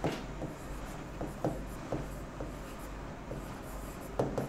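A marker pen writing on a whiteboard: a run of short, irregular strokes as letters are written, the loudest cluster near the end.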